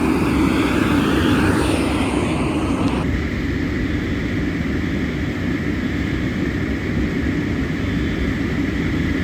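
Steady low rumble of fire apparatus diesel engines running on scene, with no clear pitch or rhythm.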